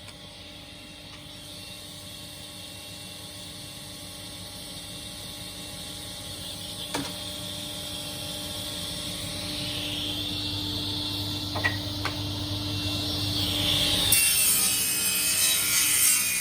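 Electric power saw running and cutting wood. It grows louder through the cut and turns brighter and harsher about fourteen seconds in, with a few sharp clicks along the way.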